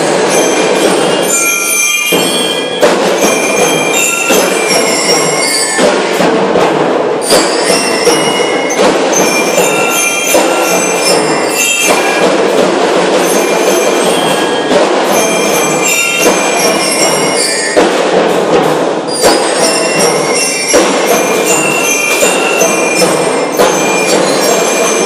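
School drum and lyre corps playing a march: bell lyres ring out the melody in short high notes over a steady beat of snare and bass drums, loud throughout.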